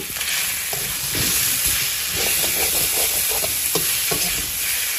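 Pork pieces and sliced onions sizzling in oil in a metal wok, with a perforated metal spatula stirring and scraping the pan in repeated irregular strokes.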